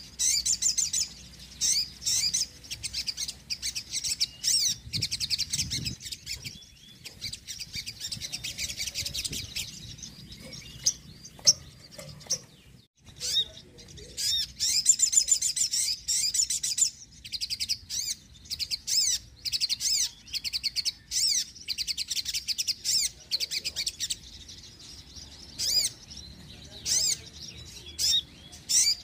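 Crimson sunbird (sogon) singing persistently: rapid, high-pitched trilling and chirping phrases, one after another with short pauses between them.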